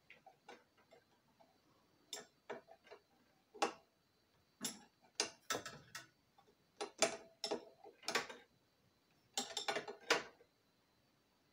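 Hand tools clicking and clinking on metal fittings of the compressor as fasteners are worked: irregular sharp clicks, some single and some in quick runs of several.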